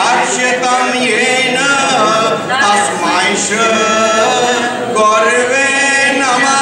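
A small group of men and women chanting a Sanskrit guru vandana hymn together in a melodic recitation, holding each syllable for about a second before moving on to the next note.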